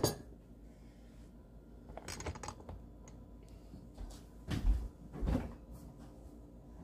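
Kitchen handling sounds: a sharp knock at the start, a few light clicks about two seconds in, then two dull thumps a little under a second apart, typical of cupboard doors or drawers being opened and shut.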